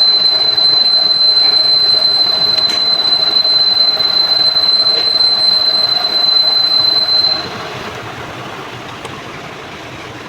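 Machine tool cutting a steel gear, a steady high-pitched squeal over the noise of the cut. The squeal stops about seven seconds in and the level falls, leaving quieter machine noise.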